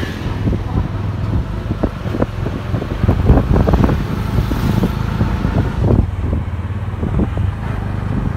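Engine of a motorized tricycle running steadily under way, heard from inside its sidecar, with irregular knocks and rattles from the body as it rolls over the road.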